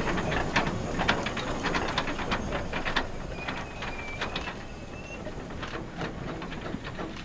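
Hunslet narrow-gauge steam tank locomotive 'Russell' standing in steam, with a low hiss and irregular light clicks and ticks. A faint thin high tone is held for a couple of seconds about halfway through, and the sound slowly grows quieter.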